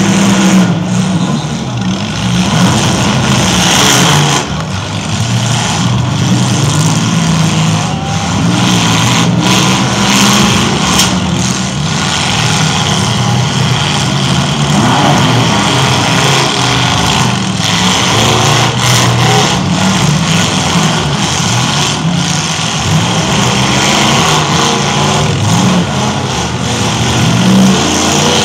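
Demolition derby cars' engines running and revving together, with occasional bangs as the cars hit one another.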